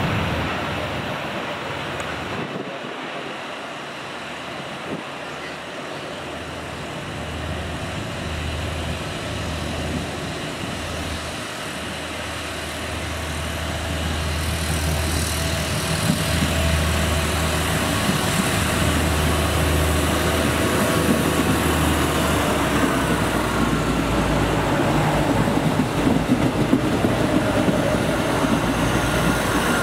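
Diesel train engine running with a steady low hum that grows louder from about halfway in, mixed with road traffic noise.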